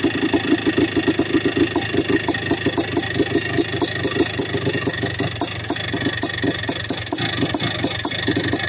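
Yamaha YZ490's single-cylinder two-stroke engine idling on its stand with a rapid, even putter, running again after a month of sitting.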